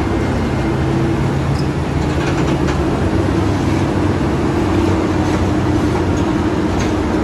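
Large Caterpillar wheel loader's diesel engine running steadily: a continuous deep drone with a humming tone over it.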